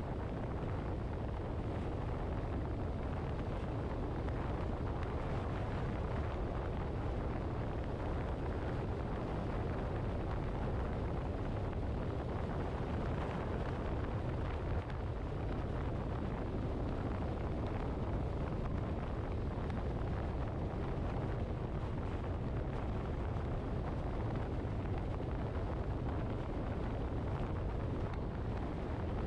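Steady low rumble of a car on the move: road and wind noise, even throughout, with no engine note standing out.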